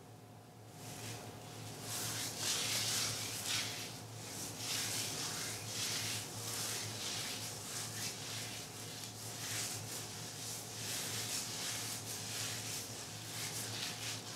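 Hands working thick conditioner through a section of wet, coily hair, making repeated soft rustling, smoothing strokes. A steady faint hum runs underneath.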